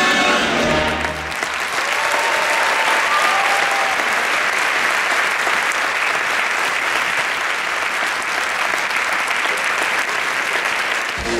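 Audience applauding, steady clapping from a large crowd, taking over as the music ends about a second in; new music starts right at the end.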